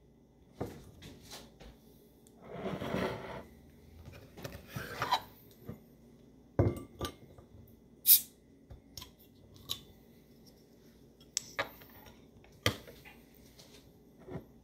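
Glass beer bottle and glass pint glass being handled and opened on a countertop: scattered clinks and knocks, a couple of short rustling stretches, and a brief high, hissy snap about eight seconds in, the loudest sound.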